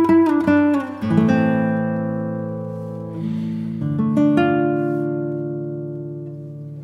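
Background music on acoustic guitar: a quick run of plucked notes, then chords struck about a second in and again a little before halfway, each left to ring and fade.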